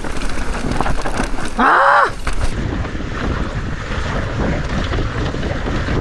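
Mountain bike descending a rough dirt trail: rushing wind on the microphone and a steady rattle of tyres and bike over the ground. About a second and a half in, a short loud pitched sound rises and falls, then the riding noise carries on.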